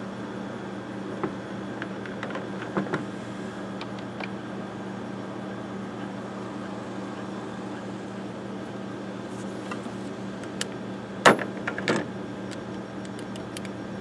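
Light clicks and knocks of hand work on a small engine, with a sharper pair of knocks near the end, over a steady low hum.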